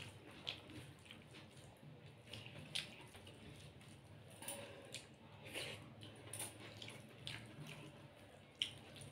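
Eating by hand: fingers mixing and squishing rice with egg curry and dal on a steel plate, with chewing and lip smacks, heard as irregular soft wet clicks, a sharper one near the end.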